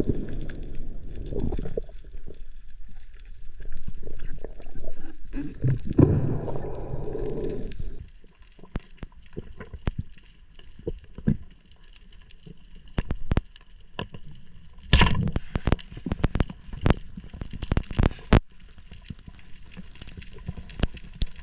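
Underwater sound picked up by a camera in its housing: a low gurgling rumble of water and movement for the first several seconds, then a sudden drop to a quieter background with scattered sharp clicks and knocks, a cluster of them about two-thirds of the way through.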